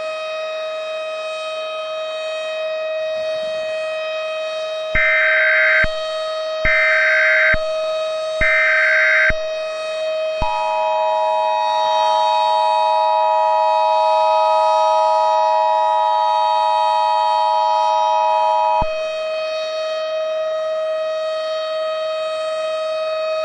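Emergency Alert System tones over a steady droning background tone. About five seconds in come three one-second bursts of the screeching SAME digital header. These are followed by the EAS two-tone attention signal, a steady dual tone held for about eight seconds that announces an incoming alert.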